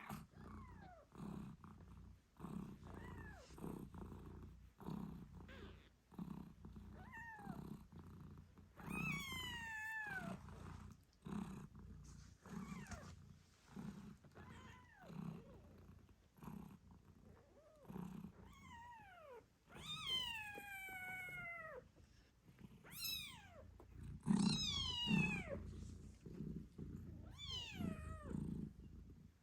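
British shorthair mother cat purring, the purr swelling and fading about once a second, while her eight-day-old kittens give high-pitched meows that fall in pitch, heard now and then and more often in the second half.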